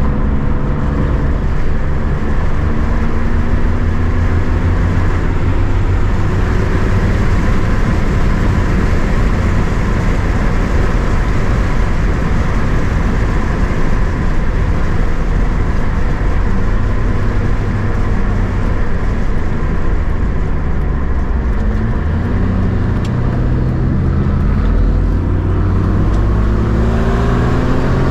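BMW inline-six car engine running on the road with tyre and road noise: the revs drop off at the start, hold steady while cruising, then climb in a few rising sweeps as the car accelerates near the end.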